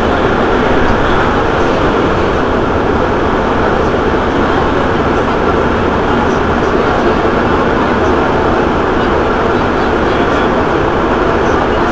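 Alstom MPM 76 rubber-tyred metro train running at a steady speed: a constant, even rumble of its running gear and tyres.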